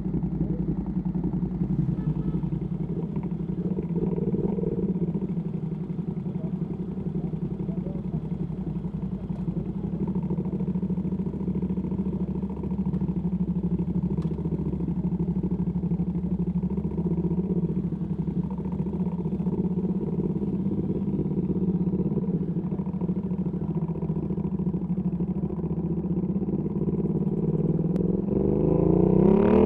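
Ducati Panigale V2S V-twin engine with a Termignoni exhaust running steadily at low revs. Near the end it revs up sharply as the bike begins to accelerate.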